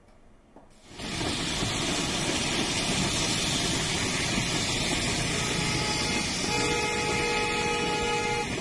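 Heavy rain pouring down on a wet road with traffic, a loud steady rushing hiss that begins about a second in. Near the end a vehicle horn sounds, held for about two seconds.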